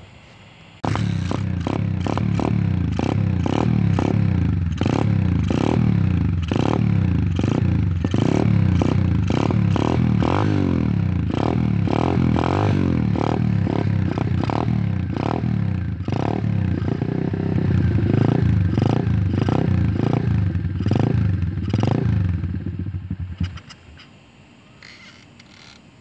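Apollo X19 dirt bike engine starting about a second in, running for about twenty seconds, then shut off: a brief warm-up so the old oil flows out better.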